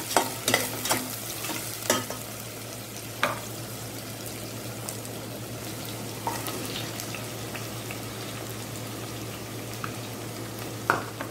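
Sliced onions sizzling in hot oil in a stainless steel pot. A wooden spatula knocks and scrapes against the pot several times in the first few seconds, then there is steady frying, with a couple more knocks near the end.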